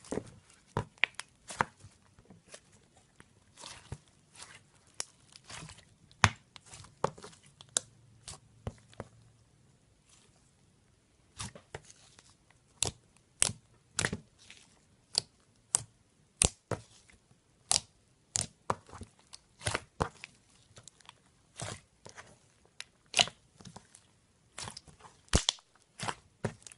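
Slime being squeezed and poked by hand, giving a series of sharp, irregular pops and crackles, about one or two a second, with a short lull about ten seconds in.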